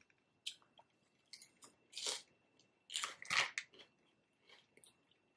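A person chewing crunchy food close to the microphone: scattered crisp crunches with quiet gaps between them, the loudest about two seconds and three seconds in.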